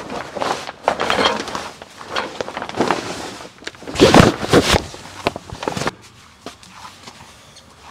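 Heavy fabric grill cover rustling and flapping as it is dragged off a barrel smoker, loudest about four seconds in. It then goes much quieter, with a few light knocks.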